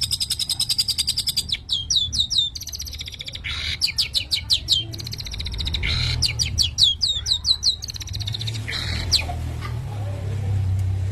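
Long-tailed shrike (cendet) singing: a fast trill of high notes, then several runs of quick downward-sweeping whistled notes, stopping about nine seconds in, over a steady low hum.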